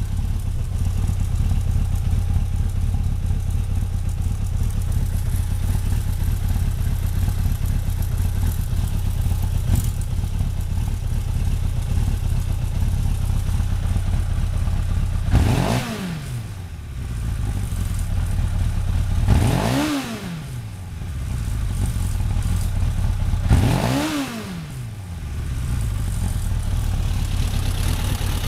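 Suzuki GSX-R1100 (GV73A) oil-cooled inline-four engine idling steadily. About halfway through it is blipped three times, roughly four seconds apart; each rev rises quickly and falls back to idle.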